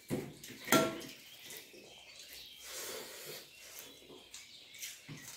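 Eating rice by hand from steel plates: fingers scraping and pressing rice against the metal, with two sharp clinks of the plates in the first second, the second ringing briefly, then softer scrapes and chewing.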